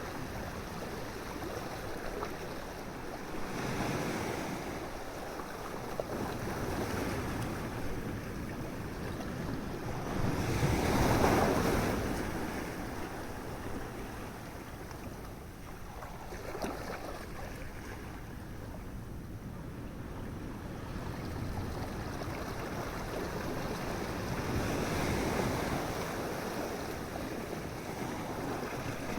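Ocean surf breaking on a beach: a continuous wash of water that swells as each wave comes in, the biggest wave about eleven seconds in, then recedes.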